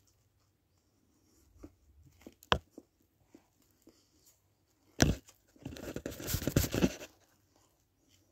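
A person eating a chicken burger close to the microphone: scattered small mouth clicks while chewing, then a sharp knock about five seconds in and about a second and a half of crackly rustling.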